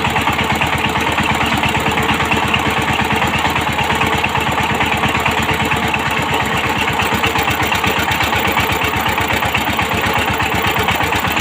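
Power tiller's single-cylinder diesel engine running steadily, with a fast, even chugging.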